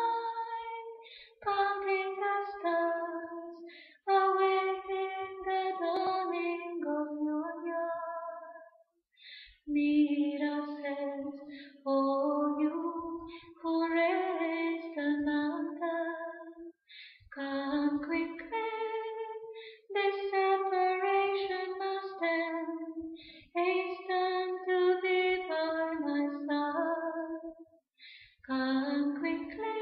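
A woman's voice singing a devotional bhajan a cappella, in flowing sustained phrases broken by short breaths.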